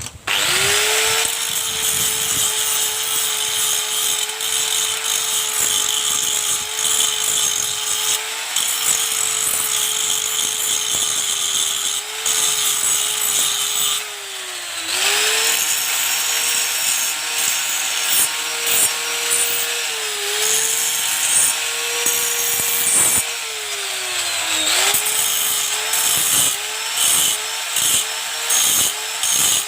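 Small electric power tool switched on and running at high speed, its pitch sagging several times as it is pressed into the work. Near the end it is pulsed on and off in quick short bursts.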